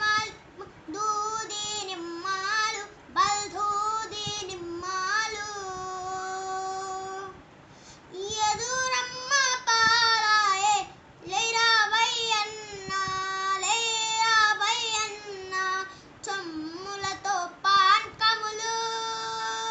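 A young boy singing a song solo and unaccompanied, in long held, wavering phrases with a few short pauses for breath.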